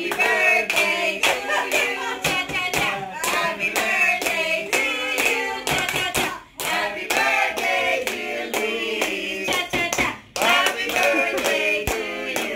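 A small group singing a birthday song together while clapping their hands in time, with two short breaks between lines.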